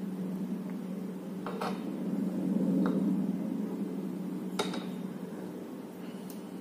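Handling noise of a metal microphone boom arm and shock mount being fitted together by hand: rubbing and a few light metallic clicks, the sharpest about four and a half seconds in, over a steady low hum.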